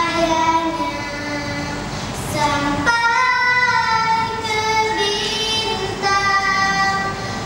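A young girl singing solo in a clear voice, holding long notes.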